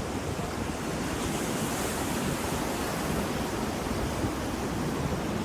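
Ocean waves surging and washing on the shore, a steady rushing noise with a brighter hiss that swells about one to three seconds in.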